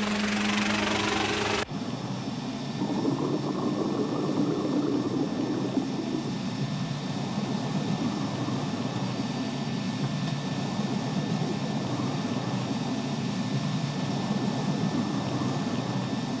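A motor humming steadily, cut off suddenly after about a second and a half and replaced by a steady low rumbling drone: the sound of a small submersible running underwater.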